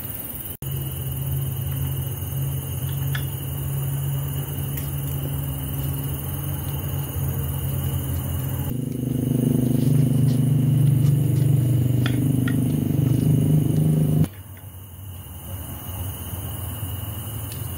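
A steady low motor-like hum with a thin steady high tone over it. The hum swells louder for a few seconds in the second half, then cuts off sharply. A few faint clinks of spoons on plates sound over it.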